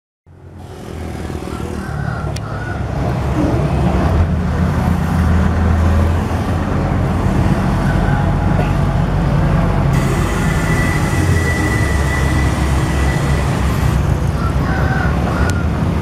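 Diesel engine of a pneumatic-tyred road roller running with a steady low rumble as it rolls over fresh asphalt, building up over the first couple of seconds. A thin, steady high tone sounds for about three seconds near the middle.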